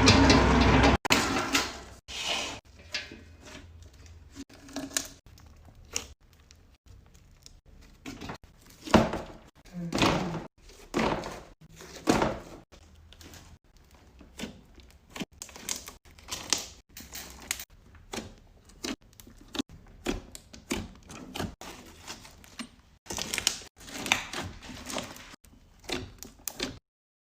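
Slime being handled, poked and squeezed, with many short irregular clicks, pops and squishes. The stretch is louder and denser for about the first second.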